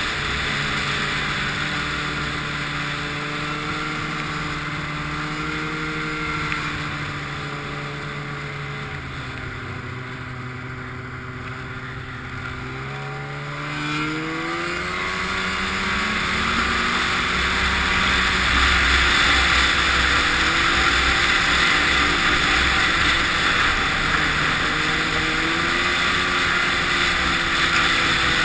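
Snowmobile engine running under way. It eases off and goes quieter through the middle, then about halfway through it rises in pitch as it accelerates and stays louder to the end.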